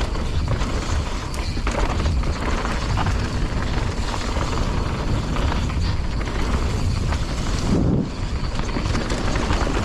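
Wind buffeting the microphone of a helmet-mounted action camera in a deep, steady rumble, over the rattle and tyre noise of a mountain bike rolling down a rough trail, with scattered knocks.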